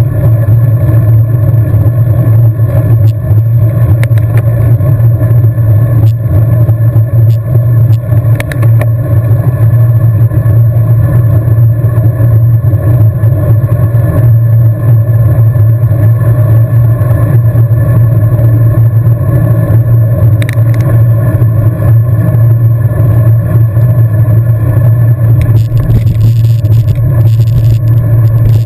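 Loud, steady low rumble with a constant hum of wind and tyre noise from a road bike riding at speed.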